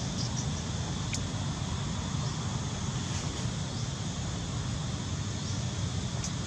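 Steady outdoor background noise, a low rumble under a constant hiss, with a few faint short high chirps and a click about a second in.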